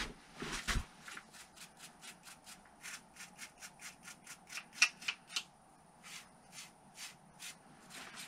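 Toothbrush scrubbing chalk off a sandstone boulder hold in quick, short strokes, about three a second, with a brief pause just past the middle.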